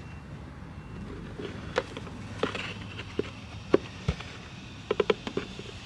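Irregular light clicks and taps, about a dozen, with a quick cluster near the end and one duller knock about four seconds in, over a low steady hum: hands handling parts and a bottle while topping up motorcycle oil.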